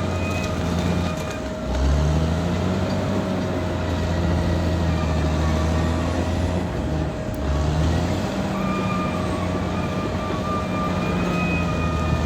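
Caterpillar D6R XL bulldozer's diesel engine running under load, its pitch rising about two seconds in, dipping briefly and rising again near eight seconds, with a steady high whine over it.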